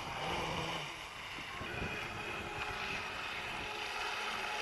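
Radio-controlled jet boat running on the water: a steady motor-and-pump whine over water noise, getting somewhat louder toward the end.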